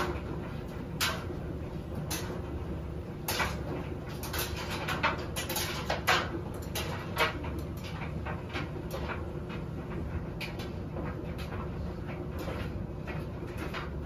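Front-loading washing machine drum turning a load of laundry: a steady low hum with irregular knocks and clicks as the clothes tumble and drop against the drum.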